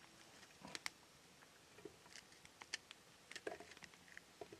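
A knife cutting mushrooms over a frying pan: faint scattered clicks and taps as the blade cuts and the pieces drop into the pan.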